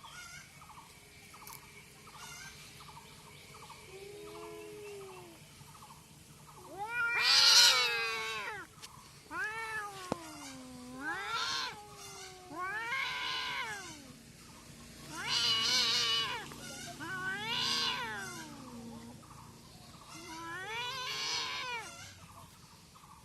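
Two cats caterwauling at each other in a fight standoff: low, drawn-out yowls at first, then a series of loud, long yowls that rise and fall in pitch, the loudest about seven seconds in.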